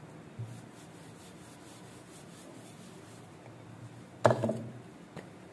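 Hands rubbing and pressing soft paratha dough against a floured stone counter, a quiet scuffing, with one brief loud knock about four seconds in.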